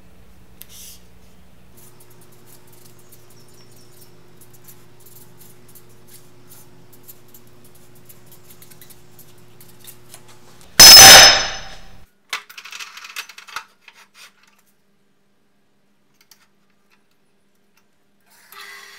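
Faint scratching of a felt-tip marker writing on paper over a low hum, then about eleven seconds in a sudden very loud metallic ringing crash that dies away over about a second, followed by a few light knocks. Near the end a metal-cutting band saw starts running.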